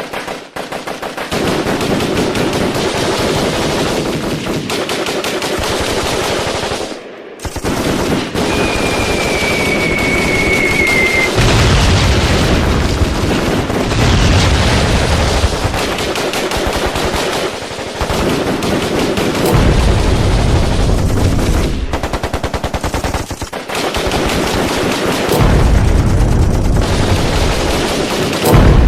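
Battle sound effect of continuous rapid machine-gun and rifle fire. A thin falling whistle sounds briefly about nine seconds in, and a deep rumble joins the gunfire in long stretches from about eleven seconds on.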